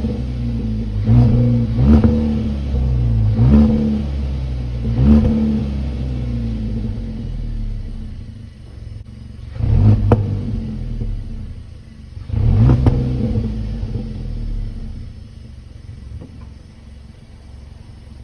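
Kia K3 GT (2019 Forte GT) engine on its stock exhaust, revved in short blips over a low rumble. Four quick blips come in the first few seconds, then two bigger revs about ten and thirteen seconds in, before it settles back to a quieter idle.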